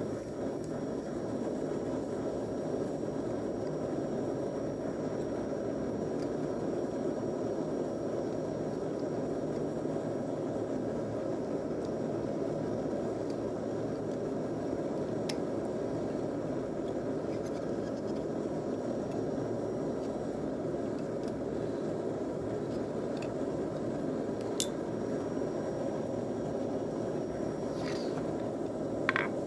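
Steady rushing noise of a forge running, with a faint metallic click now and then from pliers working hot wire. Right at the end, quick light hammer taps on the steel begin.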